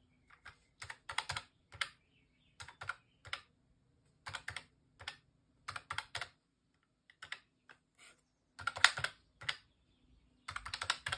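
Calculator keys being pressed in short runs of clicks with brief pauses between them, as a column of figures is added up.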